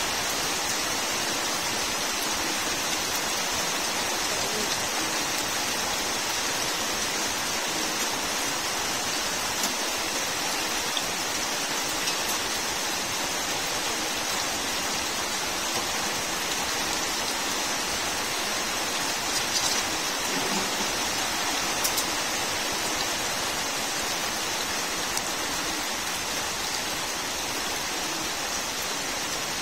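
Steady rain falling on garden plants and wet, muddy ground, an even hiss with a few sharper drops ticking now and then.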